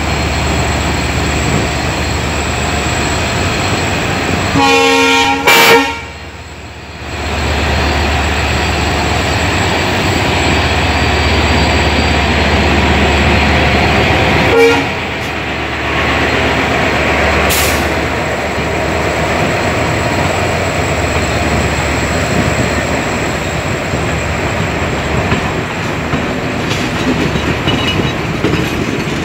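Sri Lanka Railways Class M11 diesel locomotive passing with a passenger train: its engine running with a low steady hum and its horn sounding one blast of about a second around five seconds in, the loudest moment, and a short toot about halfway through. After the locomotive passes, the coaches roll by with wheel noise on the rails.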